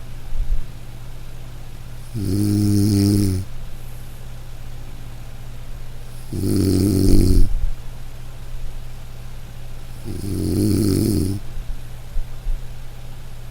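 A person snoring loudly: three snores about four seconds apart, each lasting about a second, with quiet breathing between them.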